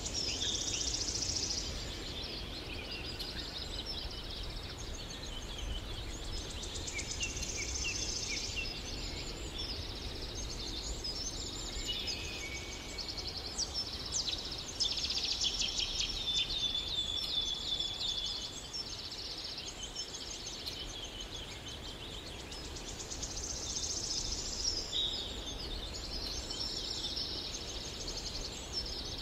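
A chorus of birds chirping and trilling, many calls overlapping.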